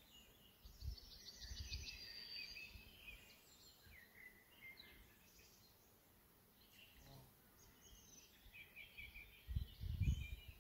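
Small birds chirping and trilling, with a few dull low rumbles, the loudest near the end.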